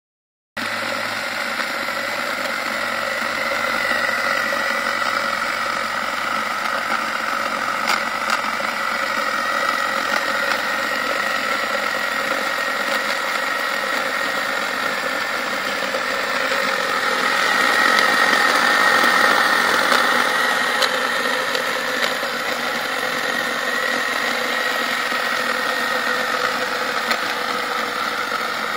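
Earthwise mini cordless electric chainsaw running steadily, with a high motor-and-chain whine as the chain cuts through a thick tree limb of about 5 inches, near the saw's maximum size. It gets louder for a few seconds about two-thirds of the way through, then settles back.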